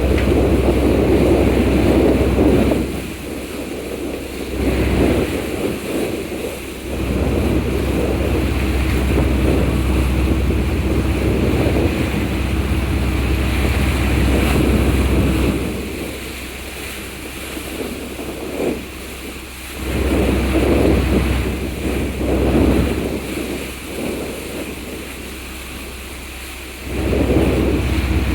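Wind gusting across the microphone aboard a moving ferry, with the rush of the sea beneath; the buffeting swells and drops several times, leaving a quieter steady hum in the lulls.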